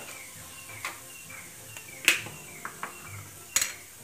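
Cumin seeds crackling in already-hot oil in a pan: a light sizzle with scattered sharp pops, the loudest about two seconds in and again about three and a half seconds in.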